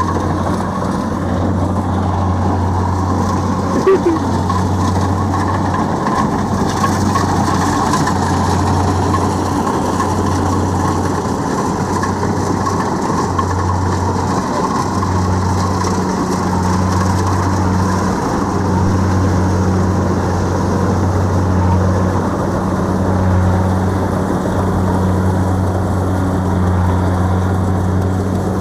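Kubota DC-70 Plus combine harvester's diesel engine and threshing machinery running steadily at work. A deep, continuous drone with a low hum that dips briefly every few seconds.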